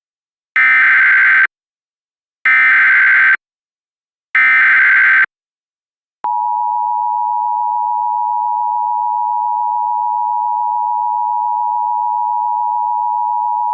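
Emergency Alert System broadcast signal. It opens with the SAME digital header: three one-second bursts of buzzing data warble with short gaps between them. About halfway through, the two-tone EAS attention signal (853 and 960 Hz sounded together) begins and holds steady. This marks the start of a new warning, here a flash flood warning.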